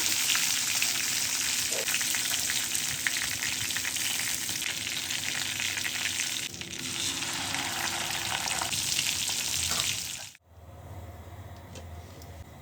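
Food frying and sizzling in hot oil in a pan, with stirring. The crackling hiss stops abruptly about ten seconds in, leaving only a faint low hum.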